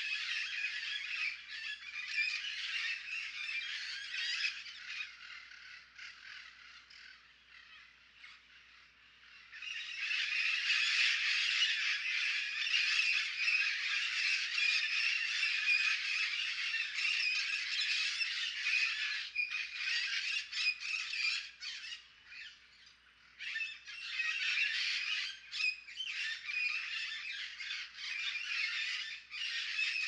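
Puerto Rican parrots squawking, harsh calls overlapping into a continuous chatter. It thins out for a few seconds, picks up loudly again about ten seconds in, and has a few short lulls later.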